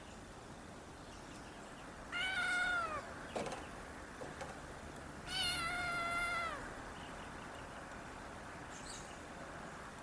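Cat meowing twice, two drawn-out calls that fall in pitch at the end, about three seconds apart, the second longer; a short sharp click falls between them.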